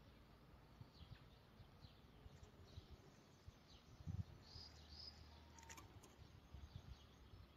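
Near silence: faint room tone, with a soft snip of scissors through satin ribbon about four seconds in.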